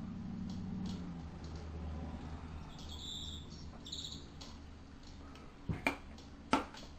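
Faint scratching of a coloured pencil on paper over a low steady hum, then three sharp knocks close together near the end, the last one the loudest.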